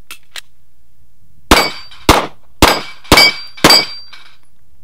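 Semi-automatic pistol firing five shots about half a second apart, each with a short ringing tail.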